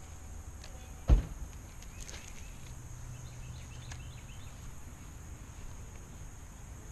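A single sharp thump about a second in, over a steady high-pitched insect drone, with a few faint bird chirps.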